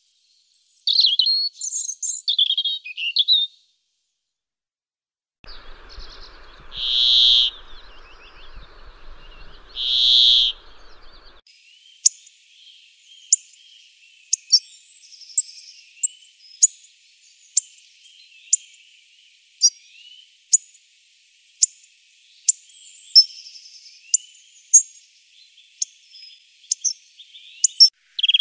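Small songbirds calling: a short twittering phrase, then after a pause two louder calls, then a long run of short sharp high ticks at about one a second.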